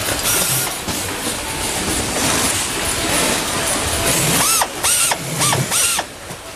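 Air screwdriver driving screws into concealed cabinet hinges. Each screw gives a short whine that rises and falls; four come in quick succession in the second half, over a steady hiss of workshop noise.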